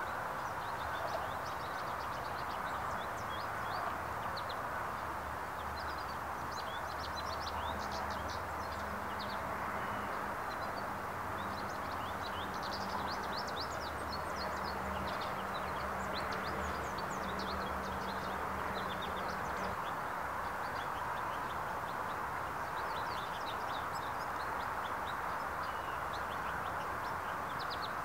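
Small birds chirping in quick, scattered calls over a steady background hiss, with a low hum joining in for several seconds in the middle.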